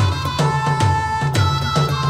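Background music with a steady beat, about two beats a second, over a bass line and a held melody tone.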